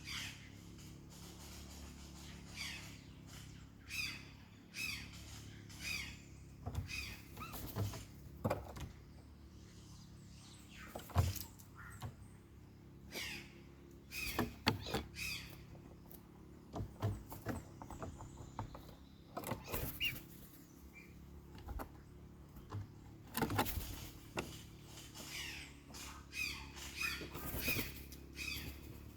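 Birds calling with short, harsh squawks, coming irregularly and often, some in quick clusters, over a steady low background hum.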